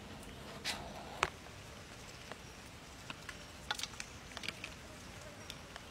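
Faint scattered clicks and ticks over a quiet steady hiss, with a brief soft rustle-like burst just before the sharpest click about a second in.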